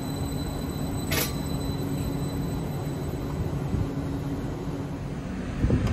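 Electric multiple-unit train alongside the platform: a steady low hum from its traction and on-board equipment, with a faint high whine and a single click about a second in.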